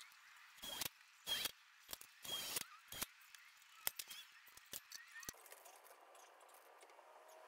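Plastic bag of hardware rustling and crinkling in three short bursts, followed by several light clicks of small metal parts being handled.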